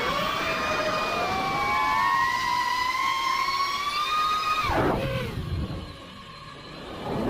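FPV quadcopter's brushless motors whining, the pitch climbing steadily under throttle, then dropping sharply about two-thirds of the way in as the throttle is cut. After a short quieter stretch, the motors spool back up at the end.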